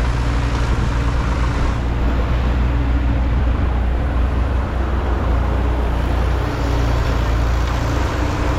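Heavy machinery diesel engine running steadily with a constant low hum.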